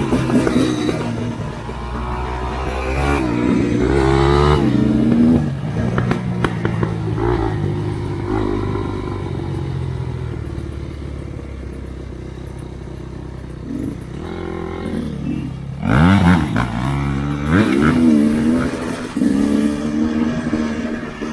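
Off-road motorcycle engine running under load while riding, its pitch rising and falling with the throttle, with hard revs about four seconds in and again about sixteen seconds in.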